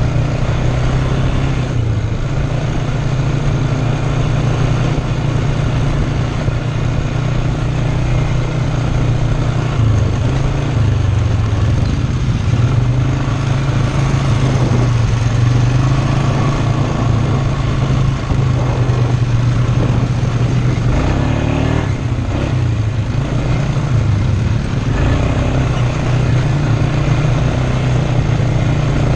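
ATV engine running continuously while riding, its pitch shifting a little with the throttle.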